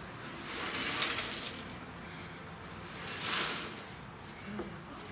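Loose rust flakes and grit swishing and rattling inside a removed VW bus steel fuel tank as it is tipped and shaken, swelling in two surges about a second in and again about three seconds in. The tank is rusted through on the inside, shedding scale.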